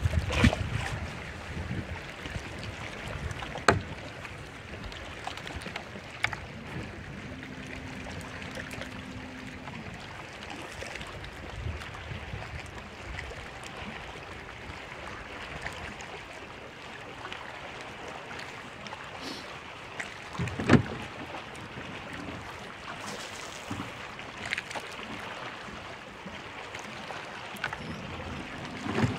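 Steady wind and water noise around a bass boat, broken by scattered sharp knocks and clicks, the loudest about two-thirds of the way through. A brief low hum sounds about a quarter of the way in.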